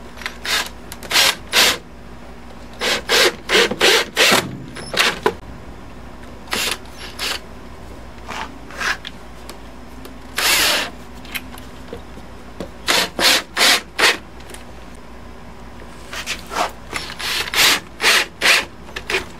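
Cordless drill driving wood screws into a wooden board, in clusters of short bursts with pauses between, one longer run just past the middle.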